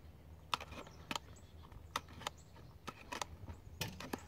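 Faint, irregular clicks and taps, about a dozen scattered through a few seconds, over a low steady hum.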